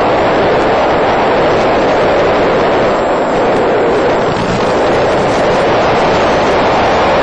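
Steady rushing noise of a small FPV radio-controlled plane in flight: its motor and propeller wash and the airflow, heard through the onboard microphone.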